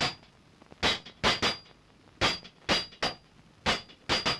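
A hammer striking metal: about eight sharp, ringing blows at an uneven pace, some in quick pairs.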